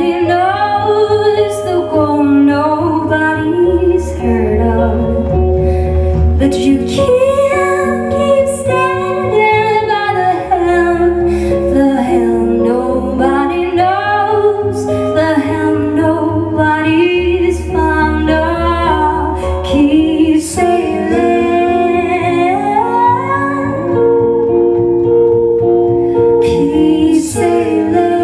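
A live trio playing a song: a woman sings a gliding melody over electric guitar and double bass, the bass notes changing every few seconds.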